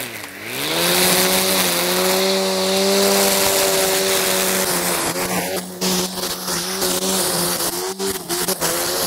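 Cordless battery string trimmer with its motor at the cutting head, running with a steady motor hum. Its speed dips briefly and climbs back right at the start. From about halfway, the spinning nylon line ticks and slaps through grass.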